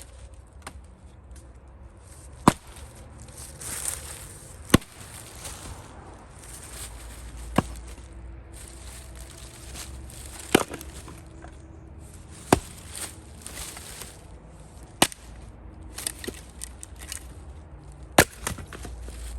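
Axe chopping and splitting firewood rounds: about eight sharp strikes, two to three seconds apart, with quieter rustling of wood between them.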